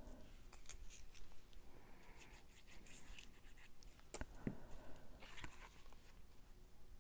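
Faint rustling, scraping and light tapping of cardstock card pieces being handled and pressed into place, with a sharper click about four seconds in.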